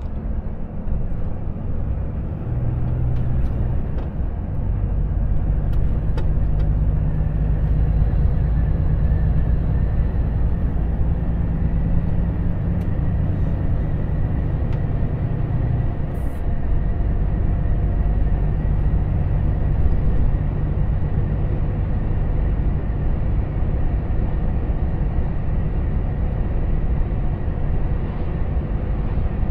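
Volvo FH 460 truck's 13-litre six-cylinder diesel engine running under load, heard inside the cab as the truck gathers speed, over steady tyre and road noise. The engine note shifts in pitch about two to four seconds in and again around sixteen seconds in.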